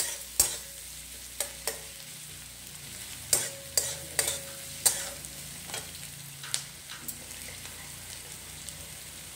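Metal spatula scraping and knocking against a kadai as chopped onion and garlic are stirred, with a low sizzle of the onions frying in oil towards golden. The strokes come in quick clusters for the first seven seconds or so, then only the sizzle goes on.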